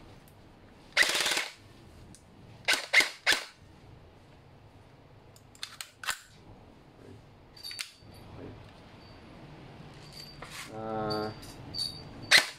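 Sharp clicks and clacks from a Lonex L4 PR01 airsoft electric gun being handled and worked, coming in scattered small groups. There is one longer, noisier burst lasting about half a second, about a second in.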